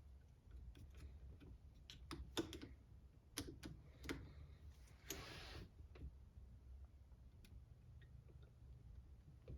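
Scattered light clicks and taps of hand tools and small parts being handled while an RC car is taken apart, most of them in the first half, with a short scraping rustle about five seconds in.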